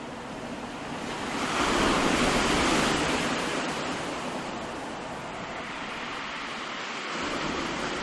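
Ocean surf washing in as a rushing hiss that swells about one and a half seconds in, then eases off to a steadier wash.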